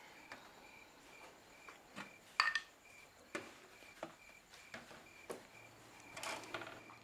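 Cricket chirping in an even, steady pulse, with a few light clicks and knocks over it; the loudest is a sharp clink about two and a half seconds in.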